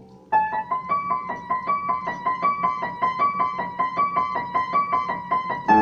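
Upright piano played: a quick, even run of notes, about six a second, begins about a third of a second in, and a new chord is struck near the end.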